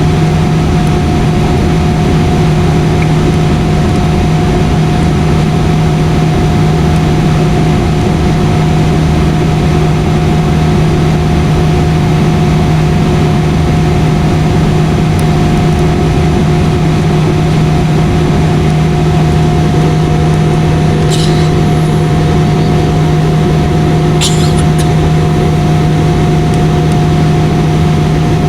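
Airliner cabin noise in flight: a steady engine drone with a constant hum and a rush of air, heard from inside the cabin. Two faint short clicks sound about three-quarters of the way through.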